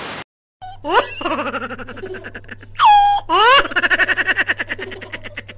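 A young girl laughing hysterically: fast pulsing giggles broken by a few high squeals that swoop up and down in pitch.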